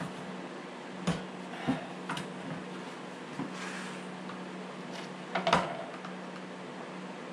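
Scattered clicks and knocks of hands working on a Stihl MS 250 chainsaw's plastic housing while taking a part off to reach the spark plug, over a steady low hum. The loudest knock comes about two-thirds of the way through.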